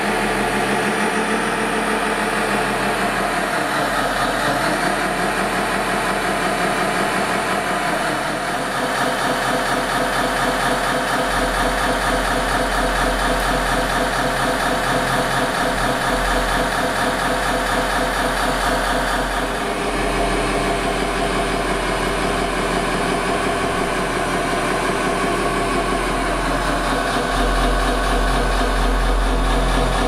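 Engine sound of a scale RC construction machine, a steady diesel-like running note that changes in pitch and weight about a quarter of the way in and again about two-thirds of the way in.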